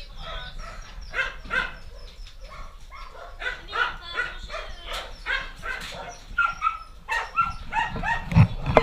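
Several dogs barking and yipping, repeated short barks one after another. Near the end there are a few loud thumps.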